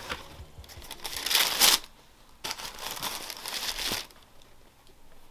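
Tissue paper inside a shoebox crinkling and rustling as it is pulled aside and a sneaker is lifted out. It comes in two bursts, the first louder, then goes quiet.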